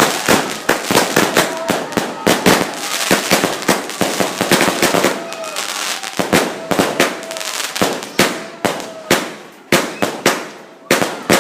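Fireworks and firecrackers going off in rapid, overlapping bangs and crackles, thinning out about eight seconds in to separate, sharper bangs a second or so apart.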